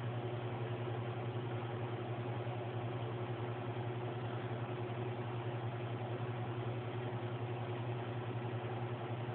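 Domestic cat purring steadily at close range, a continuous low rumble with a fast flutter.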